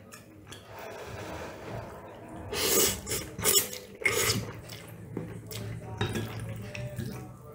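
Spaghetti being slurped from a fork, with a few loud slurps around the middle, and a metal fork and spoon scraping and clinking against a ceramic bowl.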